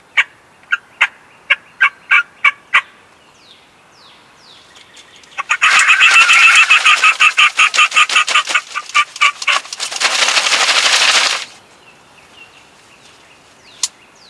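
A mouth call imitating a hen wild turkey flying down off the roost. A string of about nine short, spaced calls comes first. About halfway through, a loud, fast cackle starts, mixed with the rustling flaps of a collapsible umbrella pumped in and out to mimic wingbeats. The rustling runs on alone for a moment after the cackle stops.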